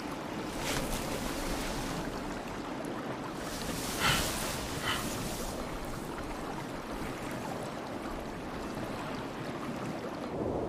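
Steady outdoor wash of wind and lapping lake water, with two short, sharp sounds about four and five seconds in.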